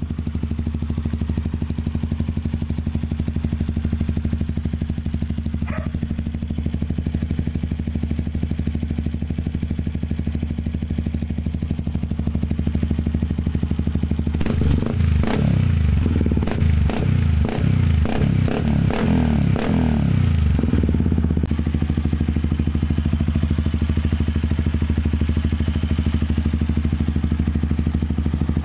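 Yamaha WR155R's 155 cc single-cylinder engine idling through a Norifumi aftermarket exhaust. About halfway through it is given a run of quick throttle blips, about two a second for some six seconds, then settles back to a steady idle.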